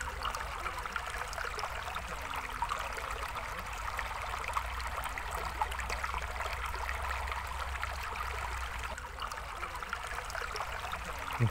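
A small, shallow rocky stream running and trickling over stones, a steady, even rush of water.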